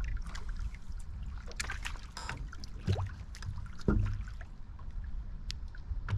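Water lapping against a fishing boat's hull with steady wind rumble, broken by thin clicks and two louder knocks about three and four seconds in.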